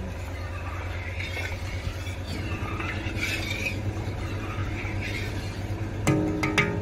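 Steady low rumble, then two sharp metallic clinks about six seconds in, half a second apart, ringing briefly: a metal utensil striking the iron kadhai on the clay stove.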